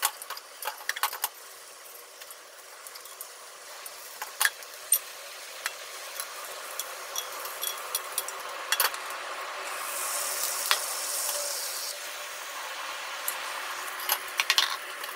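Egg sizzling in a rectangular tamagoyaki pan over a gas flame, with wooden chopsticks tapping and scraping against the pan as the omelette is rolled up; the sizzle grows a little louder about ten seconds in.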